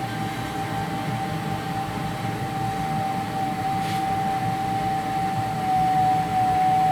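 Wall-mounted gas boiler's heat exchanger giving a steady high whistle over the noise of the burner running at nearly full power. The heat exchanger is new, and the owner takes the whistle to come from the flow of coolant through it while the circulation pump runs on its first, lowest speed.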